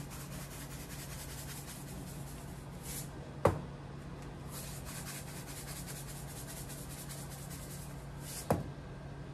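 A cylindrical salt canister shaken over a fish, giving a faint crackle and rattle, with two sharp taps, one about three and a half seconds in and one near the end. A steady low hum runs underneath.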